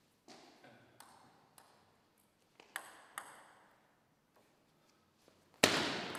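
Celluloid-type table tennis ball ticking lightly a few times before the serve, then the rally starting with sharp clicks of ball on bat and table. The loudest is a hard hit about five and a half seconds in.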